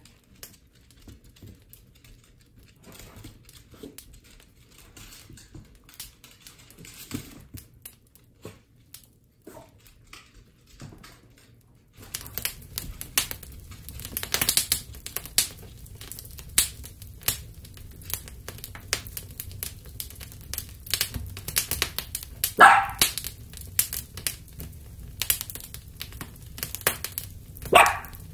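Dachshunds on a hardwood floor: sparse faint clicks at first, then from about halfway a busy clatter of claws clicking on the boards as the dogs move about, with two short single barks in the second half, the last near the end.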